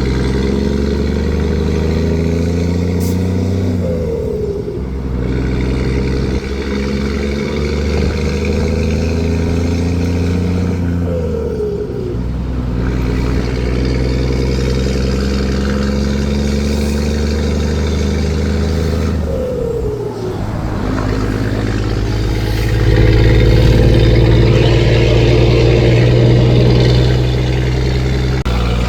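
Scania 4-series box truck's diesel engine pulling hard through the gears, heard from the cab. Its note climbs in each gear and drops at three upshifts, and it is loudest in the last gear, near the end.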